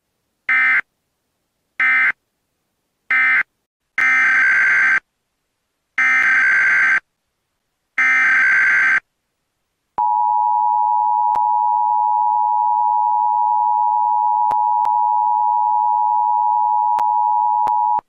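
Emergency Alert System tones. First come three short bursts of digital data tones, the end-of-message code that closes the monthly test, then three longer bursts of about a second each, the header that opens a National Periodic Test. About ten seconds in the steady two-tone EAS attention signal starts and holds.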